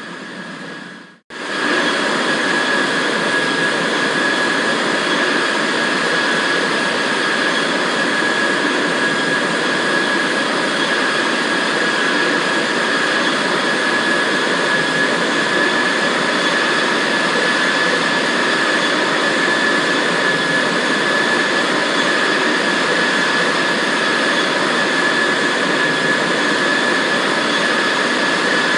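Boeing 787-8 jet engines heard from inside the cabin: a loud, steady drone with a steady high whine over it. The sound drops out briefly about a second in, then resumes unchanged.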